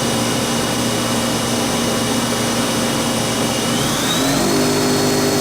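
Hardinge Conquest CNC lathe spindle with a 6-inch hydraulic three-jaw chuck running steadily at about 2,000 RPM, a steady machine whine. About four seconds in, the whine rises in pitch and the lower tones step up as the spindle is sped up toward 3,000 RPM.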